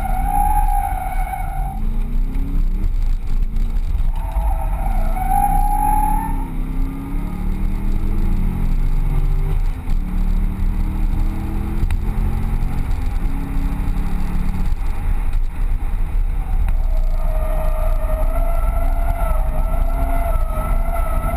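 Corvette Z06's V8 revving up and down hard through a drift run, heard from inside the cabin. Tyres squeal in wavering tones near the start and again about five seconds in, and steadily over the last few seconds.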